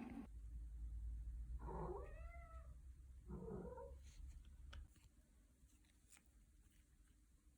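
A cat meowing twice: a longer meow about two seconds in and a shorter one a second later, over a low hum that stops about five seconds in. A few faint clicks follow.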